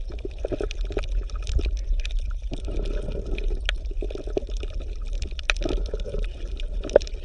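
Water bubbling and gurgling, with many small ticks and a low steady hum underneath.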